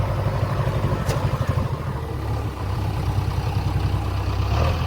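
JCB backhoe loader's diesel engine running steadily with a low, even throb.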